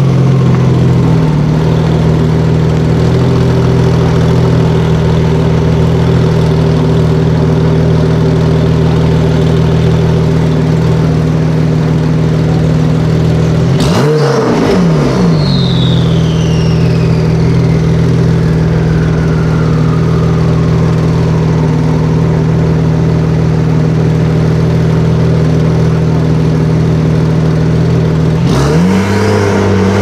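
Supercar engine running steadily with the revs briefly blipped about halfway through and again near the end. A thin high whine falls slowly away after the first blip.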